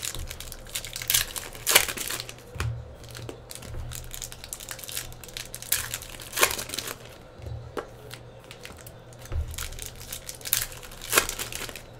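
Plastic foil wrapper of a 2016 Donruss basketball hobby pack crinkling and tearing as it is handled and opened, with irregular sharp crackles.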